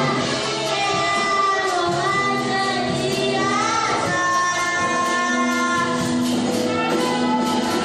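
A young girl singing solo into a microphone, holding long notes and gliding between them.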